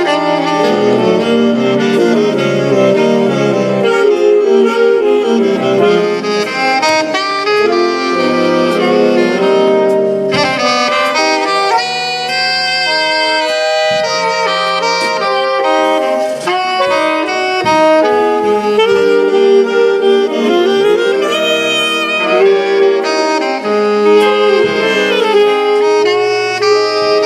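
A saxophone orchestra playing live, with full sustained chords under moving melodic lines and a short break in the texture about ten seconds in.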